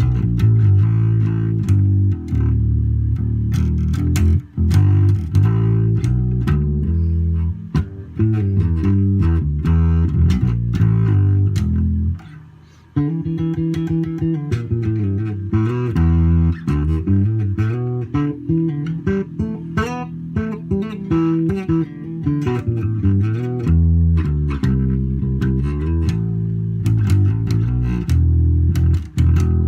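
Carvin electric bass played solo: a continuous run of bass lines and riffs, with a brief break about twelve seconds in.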